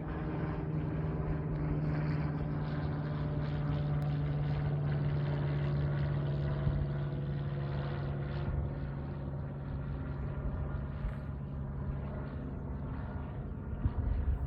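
An engine drones steadily at one constant pitch, easing off a little in the second half, over a low rumble.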